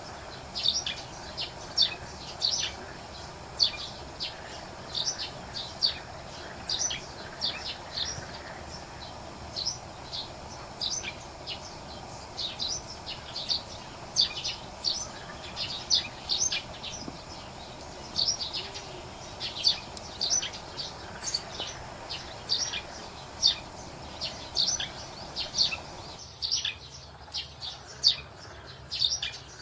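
Birds chirping over and over in forest, a few short high chirps a second, over a steady background hiss that drops away near the end.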